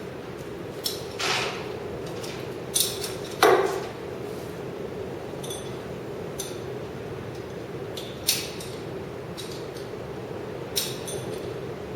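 Metal hand tools and parts clinking and knocking as work is done on a car, a sharp knock about three and a half seconds in, over a steady hum.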